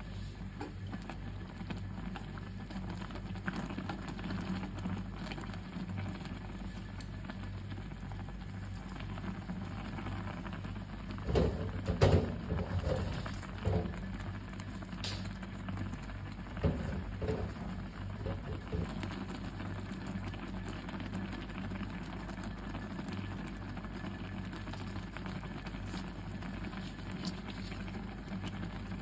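Close-up eating sounds of noodles: wet chewing and slurping, over a steady low hum. Louder clusters of slurping come about eleven seconds in and again around seventeen seconds.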